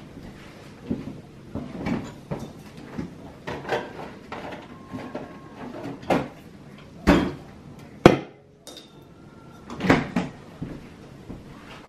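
Kitchen handling sounds: a French-door refrigerator's doors being opened and shut and items taken out and set down, heard as a string of separate knocks and clicks. The loudest come near the middle, including a sharp click about eight seconds in.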